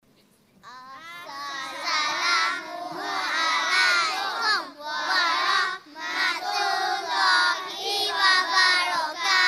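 A group of young children singing together in phrases, with short breaks between them.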